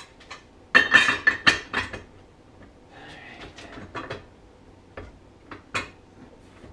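Steel tools clanking and clattering on a snowmobile drive clutch as the spider-removal tool and its long bar are worked on it, with a burst of loud ringing metal clatter about a second in and a few sharp clicks near the end.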